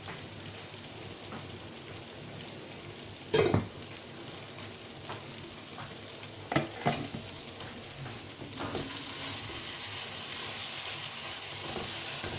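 Garden egg stew sizzling in hot oil in a pot, a steady hiss that grows a little stronger near the end. A cooking spoon knocks against the pot four times while it is stirred.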